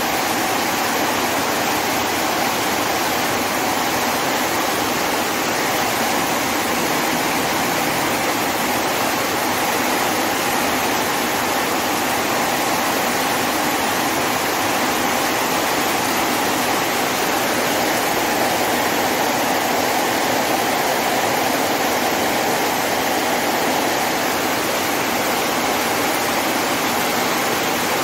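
Heavy rain pouring down in a steady, unbroken rush over a waterlogged parking area.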